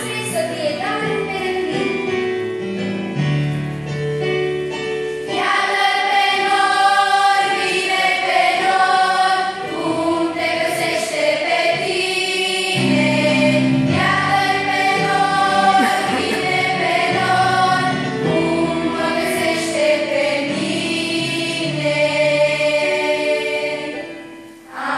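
Choir of children and teenagers singing with keyboard accompaniment, in long held chords over steady low notes; the singing dies away about a second before the end.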